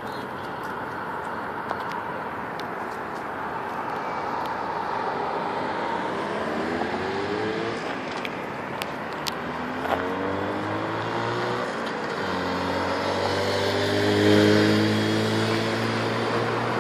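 Jawa motorcycle with a Velorex sidecar approaching and going past: the engine note rises through the gears, climbing and then dropping back at each upshift, and grows louder to a peak near the end, over a steady hiss of road traffic.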